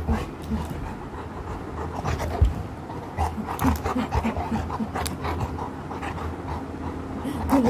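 Black Labrador panting hard and fast, open-mouthed, while being roughhoused.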